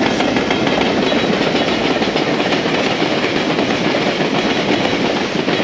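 Container freight train hauled by a JR Freight EF210 electric locomotive passing close by: a loud, steady rumble and clatter of wagon wheels on the rails.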